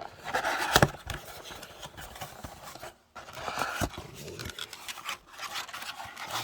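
A cardboard trading-card blaster box being opened by hand: cardboard and wrapper rustling, scraping and tearing, with a sharp snap about a second in and another near four seconds.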